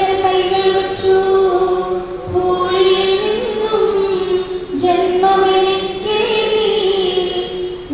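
A slow sung hymn: a high voice holding long, drawn-out notes, with a short break between phrases just under five seconds in.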